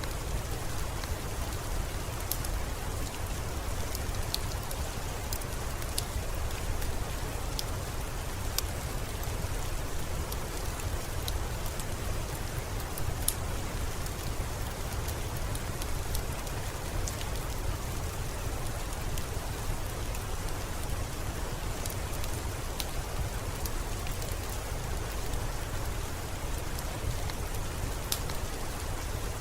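Steady rain with a deep low rumble beneath, and scattered single sharp crackles from a wood fire.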